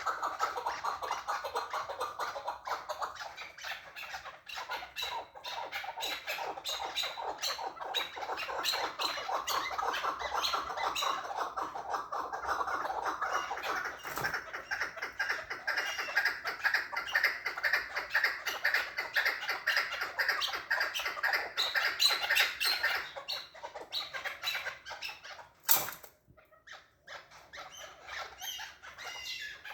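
Chukar partridge calling in a long rapid series of repeated chuk notes, several a second, rising a little in pitch and getting louder, then breaking off about three-quarters of the way through into softer scattered calls. A single sharp click comes near the end.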